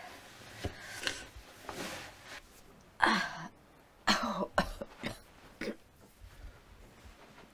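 A person coughing: one loud, harsh cough about three seconds in, then a run of four or five shorter coughs.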